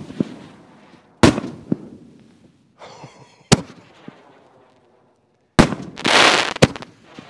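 6-inch canister aerial shells firing from mortar tubes and breaking overhead: sharp, heavy reports about every two seconds, each trailing off in an echo. Near the end a loud rush of noise lasting about a second is followed by two more quick reports.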